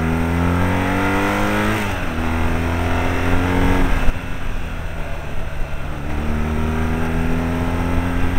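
Motorcycle engine pulling up through the gears with rising pitch, over a steady rush of wind. It shifts up about 2 seconds in and rises again, eases off the throttle about 4 seconds in, then climbs slowly again.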